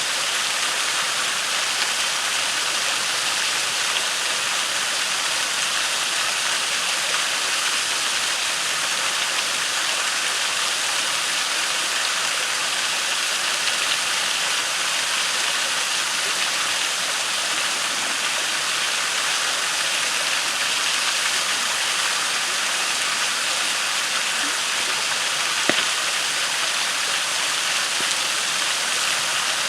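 Waterfall rushing steadily into a creek pool, with a few sharp pops from a crackling campfire, the clearest near the end.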